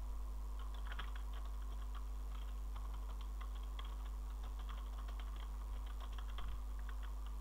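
Computer keyboard being typed on in quick runs of keystrokes, over a steady low electrical hum.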